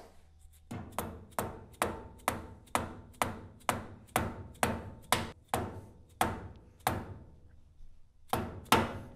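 A mallet tapping on a drift held on a Ford Model A front spindle's kingpin, about two blows a second in a run of roughly fourteen, then a pause and two more near the end, each with a short metallic ring: the kingpin being knocked into place in the spindle.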